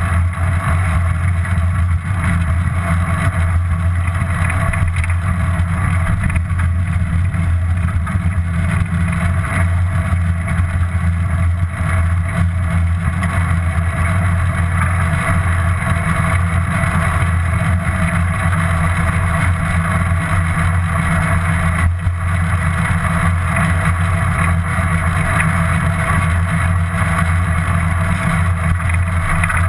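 Steady rumble of tyres on the road and wind on a GoPro riding along on a bicycle, loud and unbroken.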